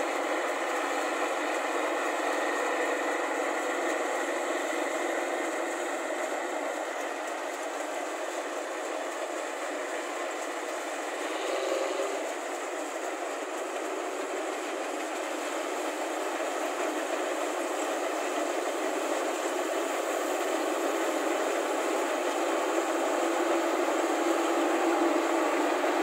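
New Holland combine harvester cutting rice: engine and threshing machinery running steadily, a continuous mechanical noise that gets slightly louder near the end.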